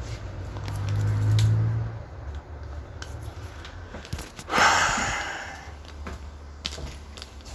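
Handling noise from a camera being taken down and carried: scattered knocks and rubbing, with a low hum in the first two seconds. About four and a half seconds in comes a loud hiss that fades over about a second.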